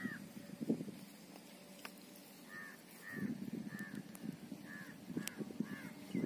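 Rustling and scraping as a black HDPE air hose is worked by hand onto a hose connector, in two spells, at the start and from about three seconds in. Behind it a bird gives a string of short, evenly repeated calls.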